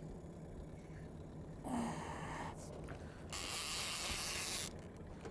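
A heavy conventional level-wind sea reel (Penn 340 spooled with 100-pound line) being cranked against a big sturgeon, in two spells of whirring rasp, the second about a second and a half long.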